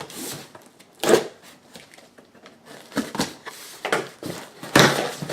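Cardboard product box being opened and handled: a series of short scrapes, rustles and knocks, the loudest near the end.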